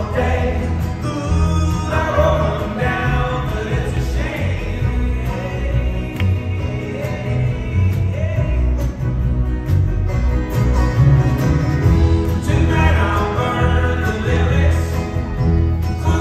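Live folk-rock band with banjo, acoustic guitar, upright bass, cello and drums playing at full volume, with voices singing over it. It is heard from the audience.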